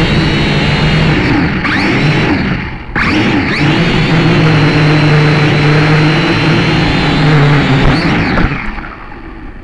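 Motor and propeller of a radio-controlled model aircraft, heard from its on-board camera: a steady hum over loud rushing air, the pitch rising and falling with the throttle. It cuts out briefly just before three seconds in, comes back, then dies away near the end as the aircraft lands in the grass.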